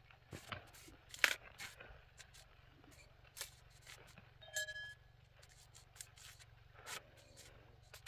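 Faint, scattered clicks and scrapes of objects being handled, with a brief high-pitched chirp about four and a half seconds in.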